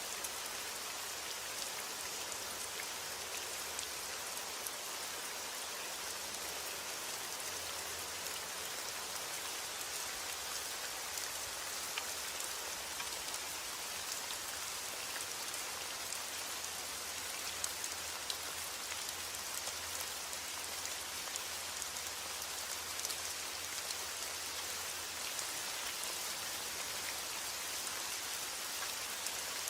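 Heavy rain falling steadily on a roof, an even hiss dotted with the ticks of single drops.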